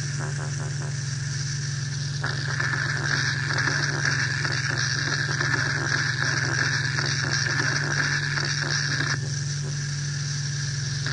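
Experimental electronic noise music: a steady, machine-like low drone under a dense, rapidly flickering crackle. A higher buzzing layer comes in about two seconds in and cuts out near the end.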